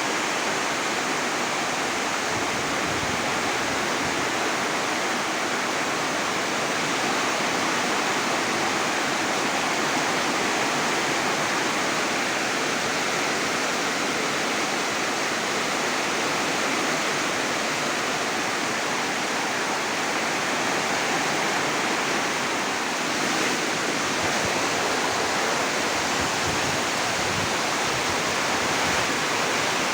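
Heavy rain falling in strong wind: a steady, dense hiss that runs without a break.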